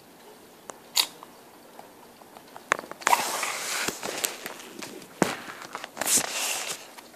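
Handling noise from a handheld camera being moved about: a single sharp click about a second in, then rubbing and scraping against the microphone from about three seconds in, with another burst near the end.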